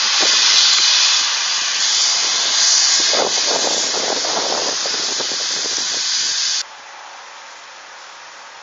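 Helicopter turbine engine running on the pad: a loud, steady hiss that cuts off suddenly about six and a half seconds in, leaving a fainter steady noise.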